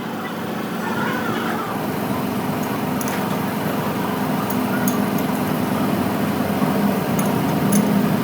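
A machine running steadily with a low hum, with a few light ticks.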